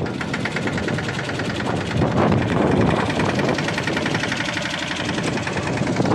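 ACE Veer 20 mini tractor's diesel engine running with a rapid, even firing clatter as it pulls a tine cultivator through the field, growing louder about two seconds in.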